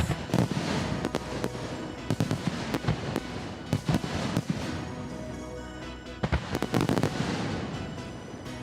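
Fireworks bursting in a rapid string of sharp bangs and crackles, with music playing alongside.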